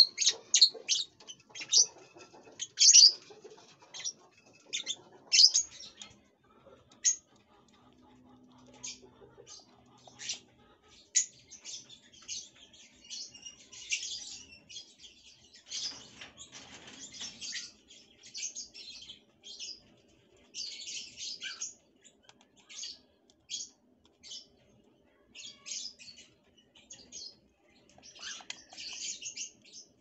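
Small pet parrots chirping: many short, high chirps in quick succession, now single, now bunched into brief chattering clusters.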